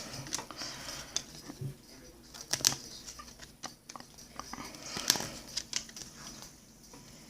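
Trading cards being handled: irregular sharp flicks and soft rustling as cards are slid and flipped through by hand, with the two loudest flicks about two and a half and five seconds in.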